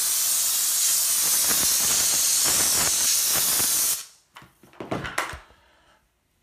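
McCulloch MC1275 steam cleaner's nozzle hissing steadily as it sprays steam onto tile grout, cutting off suddenly about four seconds in. A few light knocks follow.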